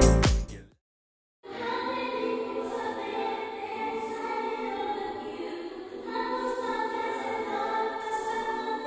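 Background music: a loud dance track with a steady beat fades out within the first second, then a short silence, then soft, slow choral-sounding music of sustained voices with no beat.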